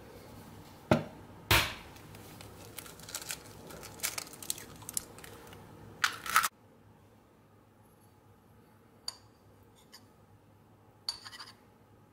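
An egg knocked twice against the rim of a ceramic bowl, then a run of small crackling clicks as the shell is broken open, ending in a louder burst. Near the end, a few light clicks of a metal spoon at the bowl.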